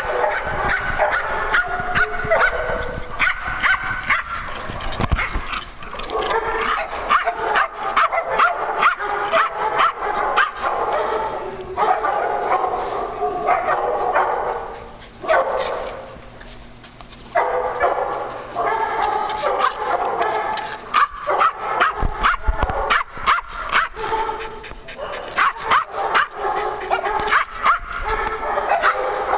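Several dogs barking and yipping over one another in a constant run of sharp barks, with a short lull about halfway through.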